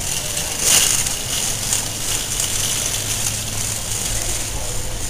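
Metal shopping cart being pushed fast across a smooth store floor, wheels and basket giving a steady rattling clatter, with a brief louder swell about a second in.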